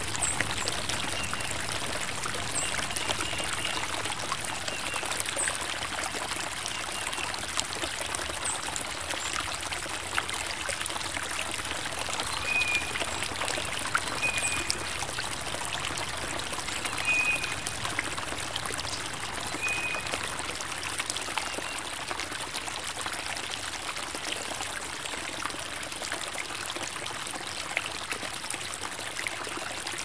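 Creek water running steadily over small rocky cascades, with a few short, high bird chirps scattered through the middle.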